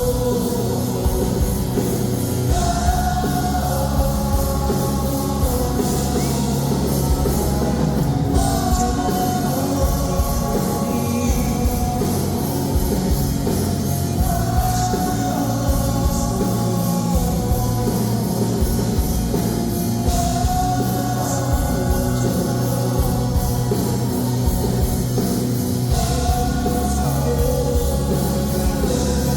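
Live pop-rock band music with a male lead vocal singing over drums and bass.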